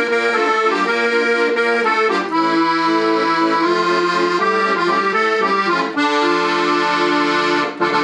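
Hohner Ouverture accordion played with held chords that change every second or so, closing on a long sustained final chord that breaks off right at the end.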